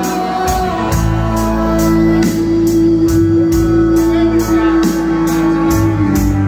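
Live rock band playing: guitars with long held notes over bass, driven by a steady drum beat of about three hits a second.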